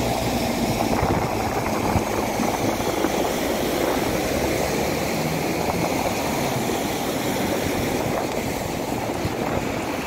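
Vehicles driving through a flooded road: steady engine noise mixed with the wash of tyres pushing through floodwater.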